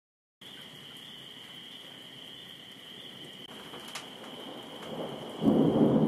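Steady rain hiss, then a close thunderclap about five and a half seconds in: sudden and loud, rumbling on afterwards.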